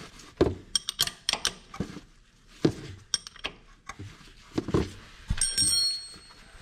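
Hand tools on the shifter bushing bolts under the car: a string of sharp metal clicks and clinks, with a short metallic ring near the end.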